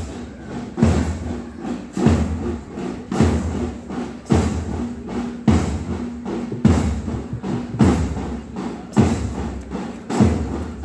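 School band drums beating a slow, steady march time, a heavy bass-drum stroke about once every 1.2 seconds.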